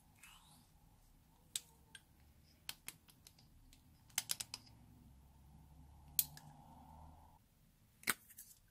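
Lipstick cases clicking as caps are pulled off and tubes are handled and tapped against a glass dish: scattered sharp clicks, with a quick run of three or four about halfway through.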